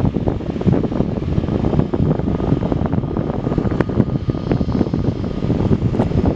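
Airbus A320neo's CFM LEAP-1A jet engines running at taxi power: a steady rumble with a faint whine, buffeted by wind on the microphone.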